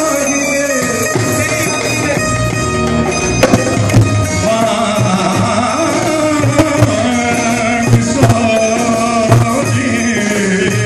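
Live Punjabi folk music: a man sings an ornamented, wavering melody over keyboard and guitar, with dhol drum beats coming in about three seconds in.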